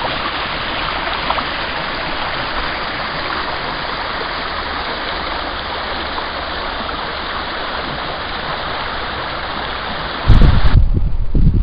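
A rocky brook's shallow rapids rush steadily over the stones. About ten seconds in, a loud low buffeting of wind on the microphone cuts in and the rush of water drops away.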